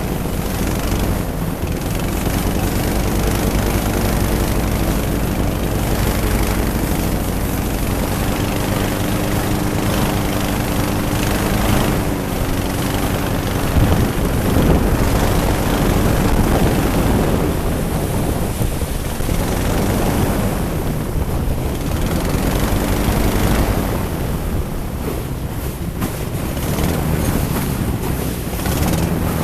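Twin-engine airboat under way, its engines and air propellers running with a pitch that rises and falls. Heavy wind noise on the microphone runs under it.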